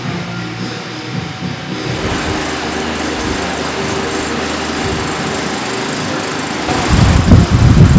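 Large pedestal fan running with a steady whir. About seven seconds in, a loud, uneven low rumble sets in on top of it.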